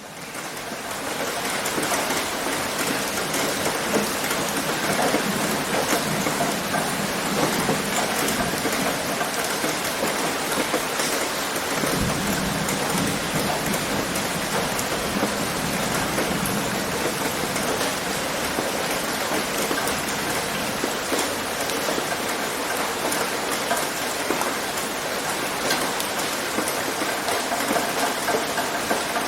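Steady rain on a tin roof: a dense pitter-patter of many small drops, with drips falling from the eaves. It fades in over the first two seconds, and a single soft low thump comes about twelve seconds in.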